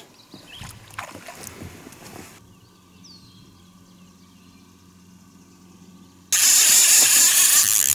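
A trolling reel's drag screaming as a fish strikes and strips line off the spool, starting suddenly about six seconds in. Before it, only a faint steady motor hum.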